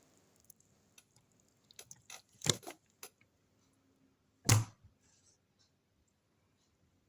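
Yellow slime being squeezed and poked by hand: scattered soft clicks and squelches, a few louder ones about two and a half seconds in, and one loud squelch about four and a half seconds in.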